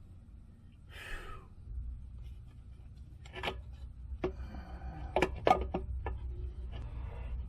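Handling noise from working on a car: a few sharp knocks and clinks between about three and six seconds in, over a low steady rumble that starts about two seconds in.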